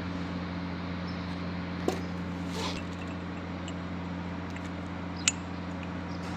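Steady low machine hum, with two sharp metallic clicks, one about two seconds in and one about five seconds in.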